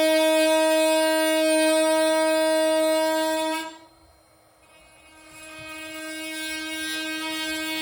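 Makita XMT04ZB 18V cordless oscillating multi-tool with a Bosch blade, cutting a notch into a wooden stud: a steady, high buzz. It cuts out about three and a half seconds in, then comes back and builds up steadily over the last few seconds.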